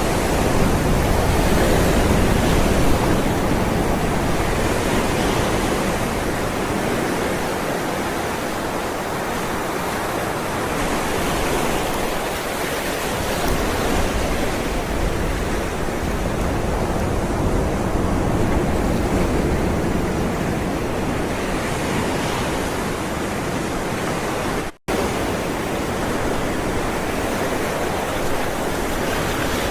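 Ocean waves rolling and breaking on a shore: a continuous wash of surf that swells and eases every few seconds. It cuts out completely for a split second near the end.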